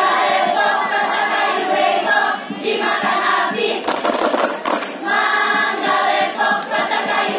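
A school choir of young teenage students singing together in sung phrases. About four seconds in, the singing briefly breaks for a few claps before it resumes.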